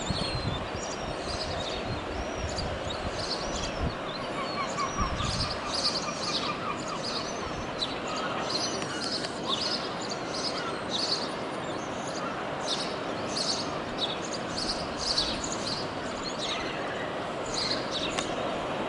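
Yellow-legged gull chicks peeping over and over in short, high, thin calls, the begging calls of chicks being fed by the parent. Steady background noise runs underneath.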